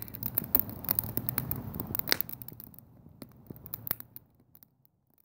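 Wood fire in a mesh fire pit crackling, with irregular sharp pops and snaps over a low, steady rush. It dies away to near silence over the last second or so.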